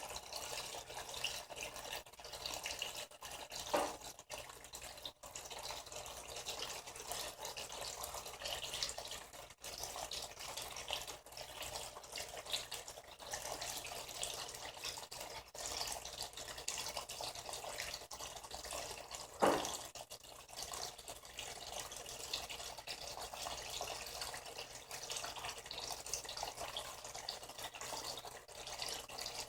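Water running steadily into the tub of a Frigidaire Gallery Series top-loading washing machine, with two brief louder sounds about 4 and 19 seconds in.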